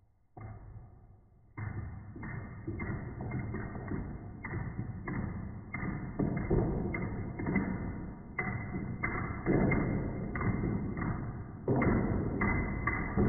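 A run of padlocks toppling into one another like dominoes: a chain of knocks and clatters about two a second, growing louder and busier toward the end.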